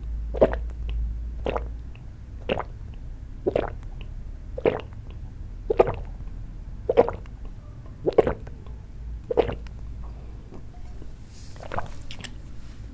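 A person gulping makgeolli from a metal cup in one long drink: about nine swallows, roughly one a second, stopping about ten seconds in.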